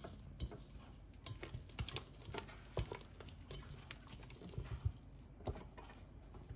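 Spatula working thick choux pastry dough by hand in a bowl: irregular light taps and clicks against the bowl.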